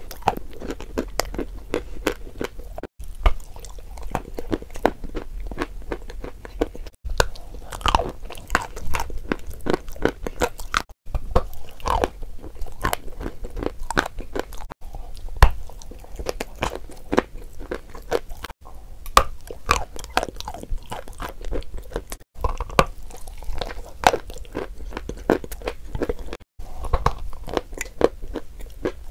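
Close-miked biting and chewing of a crumbly chalk lump coated in brown paste: a steady run of crisp crunches and crumbling, broken by brief silent cuts about every four seconds.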